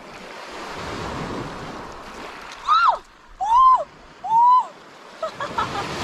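Small waves washing onto a pebble shore, with light wind on the microphone. About halfway through come three short, loud, high calls, each rising and then falling in pitch.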